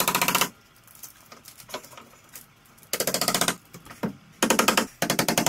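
Hammer and chisel chipping cured fiberglass off a car body panel: runs of rapid, sharp strikes lasting about half a second each, four times, with a few light taps between.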